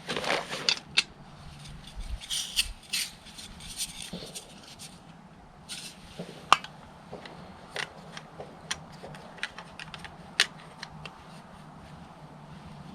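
Camp cooking gear being handled: irregular light clicks and ticks with a few short rustles, as a Jetboil stove and a meal are set up.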